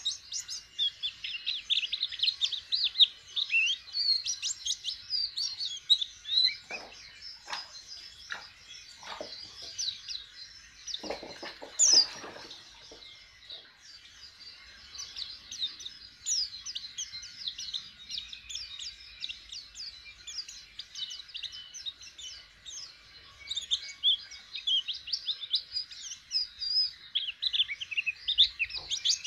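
Caged white-eye (pleci) twittering in quick high chirps, a bird learning its song and just starting to sing. The chirping thins out for several seconds midway and picks up again near the end. A few dull knocks and a louder clatter come between about 7 and 12 seconds in.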